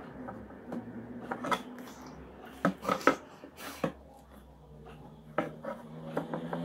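A few sharp clicks and taps as makeup items are handled: a makeup brush put down and an eyeliner pencil picked up, over a faint steady room hum.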